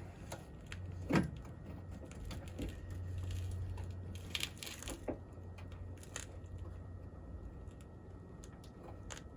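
Scattered clicks, taps and a brief scrape of metal parts inside a Ford Excursion door as the door lock actuator and its linkage are worked into line by hand, over a steady low hum. The loudest knock comes about a second in.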